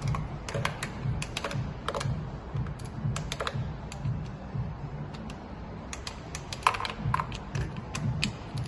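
Socket ratchet on the rocker cover bolts, clicking in short irregular runs as the bolts are worked.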